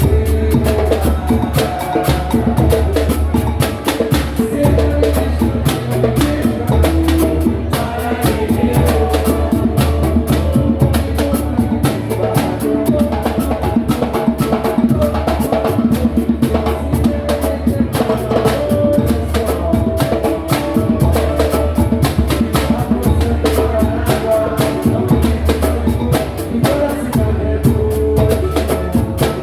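Samba/pagode music: dense, rapid percussion over a deep, pulsing bass drum, playing continuously.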